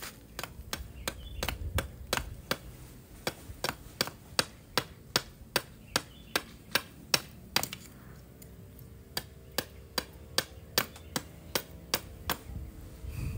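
Machete chopping at the end of a wooden pole, a quick run of sharp strikes about three a second with a short pause about eight seconds in, whittling the pole down so it will fit as a tool handle.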